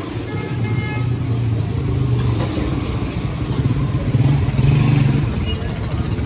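Street traffic with a motor vehicle engine running close by, a steady low hum that grows louder about four to five seconds in, with a few brief high chirps over it.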